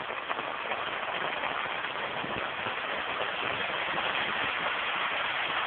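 Steady rush of running water, growing slightly louder.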